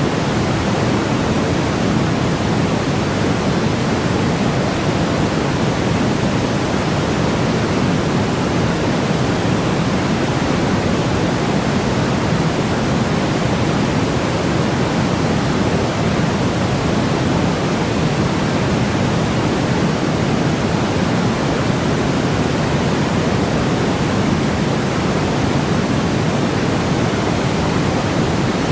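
Steady, unchanging synthetic noise, heavier in the lows than in the highs, like pink noise, played as a sleep and calming sound.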